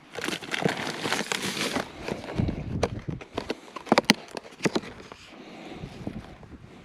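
Plastic food packaging being handled: a burst of rustling and crinkling, then a few sharp clicks and snaps near the middle.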